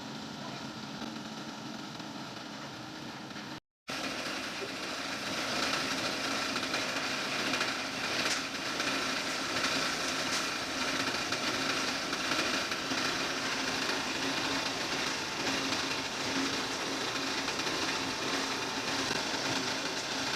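Concrete mixer running steadily. The sound cuts out completely for a moment just under four seconds in, then returns louder.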